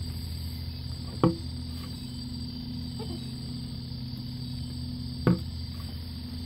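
Two sharp knocks about four seconds apart, as the paddle strikes the plastic hull of a Native Slayer pedal fishing kayak during paddling, over a steady low hum.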